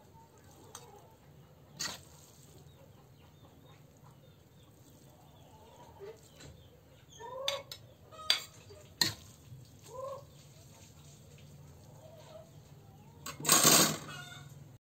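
Occasional clinks and scrapes of a cooking utensil against a wok, with one much louder scrape near the end. A chicken clucks a few times in the background.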